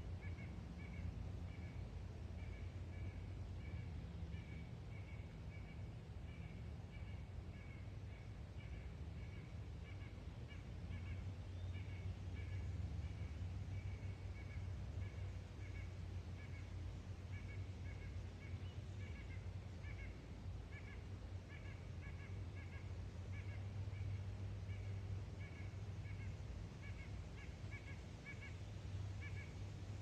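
A steady series of short, high animal calls repeating about twice a second, over a low, steady rumble.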